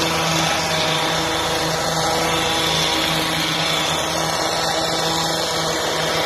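Engine of olive-harvesting machinery running at a steady speed, a constant even hum.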